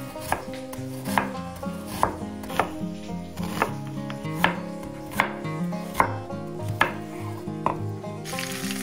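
Kitchen knife chopping an onion on a wooden cutting board: the blade cuts through the onion and strikes the board in about ten sharp knocks, roughly one a second.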